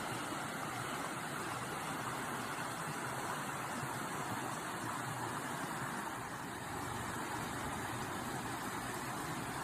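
Steady, even rushing noise with no distinct events or pitch.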